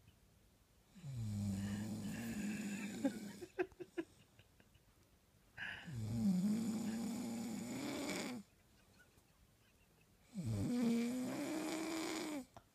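Snoring: three long, pitched snores, each two to three seconds long, with quiet pauses between them. A few short clicks follow the first snore.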